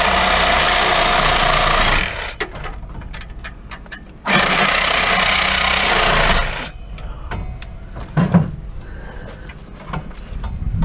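Cordless reciprocating saw cutting in two runs of about two and a half seconds each, with clattering and a couple of knocks after the second run. Its battery is running low and the saw is losing power.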